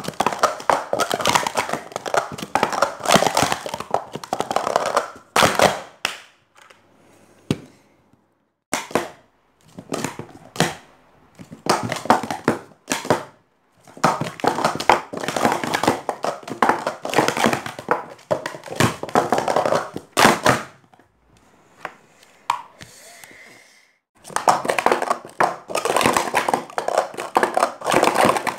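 Plastic sport-stacking cups clattering rapidly as they are stacked up and down through the cycle sequence on a stack mat. The fast clatter comes in several runs with short pauses between them.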